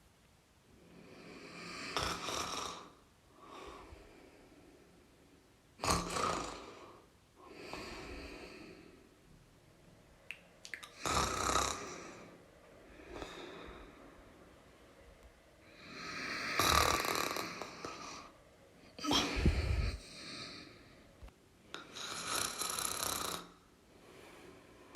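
A person snoring: a series of loud snoring breaths every four to five seconds, with softer breaths between them. Late on, one snore carries a deep, low snort.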